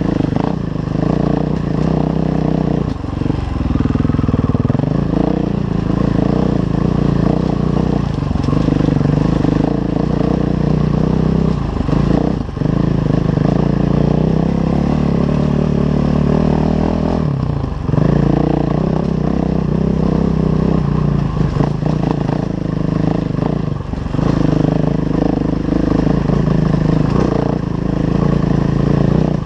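KTM 500 EXC enduro bike's single-cylinder four-stroke engine running under load on a rocky climb. The engine note rises and falls with the throttle, with a brief drop every few seconds as the throttle is shut or a gear changed.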